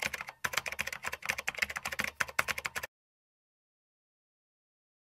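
Computer keyboard typing: a fast, uneven clatter of keystrokes that stops abruptly about three seconds in.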